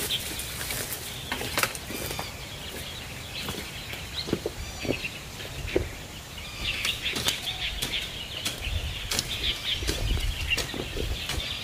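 Birds chirping over rustling of a plastic mesh garden net, with scattered sharp clicks and knocks. Near the end a hoe starts cutting into dry soil.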